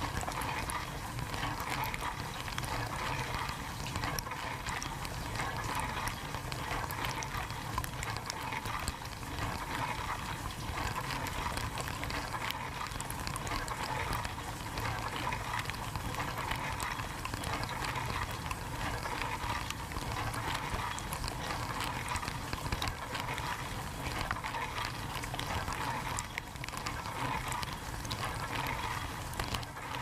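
Dishwasher running, heard from inside the tub: a steady rush of water spraying and splashing.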